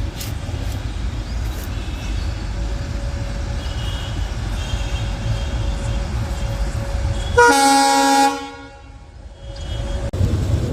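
Low rumble of a moving train with a faint horn tone, then about seven seconds in one loud Indian Railways locomotive horn blast lasting about a second, which cuts off abruptly.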